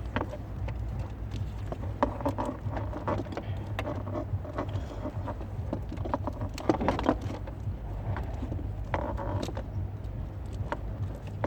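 Hands handling a car stereo wiring harness: scattered clicks and small rattles of plastic connectors and wires, over a steady low hum.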